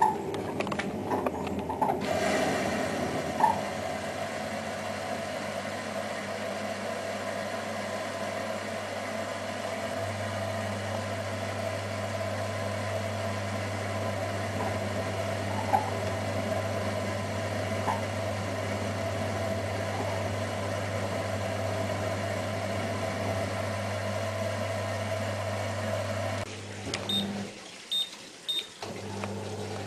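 Privileg Ergonomic 1600 S washing machine running with a steady low hum and a wavering mid-pitched drone; the hum stops near the end and three short high beeps follow.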